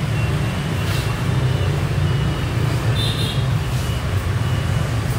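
Steady low rumbling background noise, with a short high ringing tone about three seconds in.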